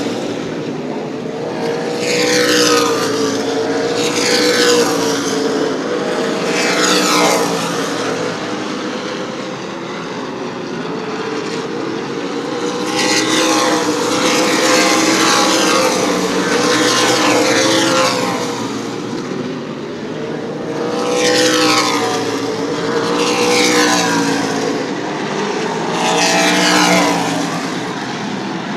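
Super late model stock cars' V8 engines running at racing speed on a short oval track. The sound swells and fades in repeated waves as cars pass, each pass falling in pitch, over a continuous engine drone from the rest of the field.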